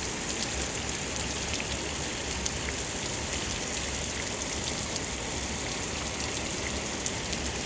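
Steady rain falling during a thunderstorm, with scattered sharp ticks of drops hitting a surface.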